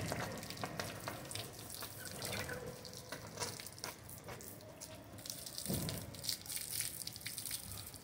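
Water splashing and dripping in many small quick splashes as a vulture is bathed.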